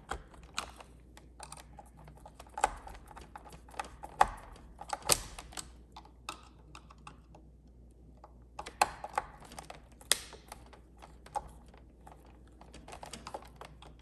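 A small Phillips screwdriver driving two little screws back into the plastic mount of a Roomba's side brush motor: irregular light clicks and taps.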